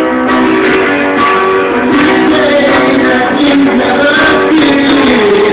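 Live guitar and keyboard playing a song together, with no bass or drums.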